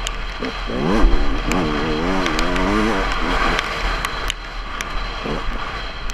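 Dirt bike engine revving up about a second in, then held with the throttle rising and falling before it eases off. Wind rumbles on the helmet-mounted microphone, with a few sharp ticks.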